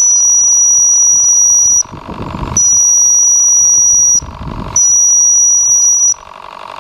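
Steam whistle on a model steam launch's boiler blown three times, one high steady note of about a second and a half each with short gaps. The boat's V-twin steam engine runs underneath.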